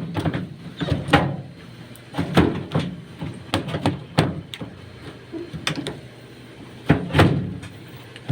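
Irregular sharp knocks and clatters, about a dozen, as hard objects are handled and set down.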